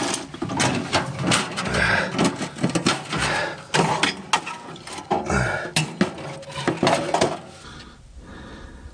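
Metal clanking and rattling from a Coleman double-burner camp stove as its steel case is opened and the lid, grate and red fuel tank are handled. Many irregular knocks, which die away about seven seconds in.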